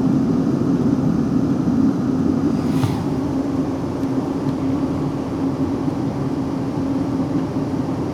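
Interior running noise of a South Western Railway Class 458 electric multiple unit: a steady rumble with a constant hum. There is one brief click about three seconds in.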